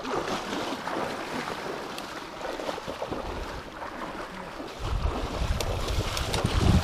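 Wind buffeting the microphone, a low rumble that sets in strongly about five seconds in, over a rustling noise with a few faint clicks.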